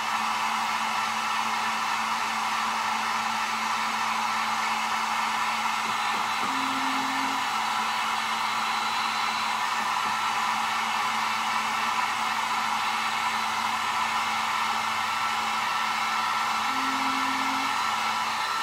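Heat gun on its low setting blowing a steady rush of hot air over wet epoxy on a tumbler, warming the resin so it starts to run.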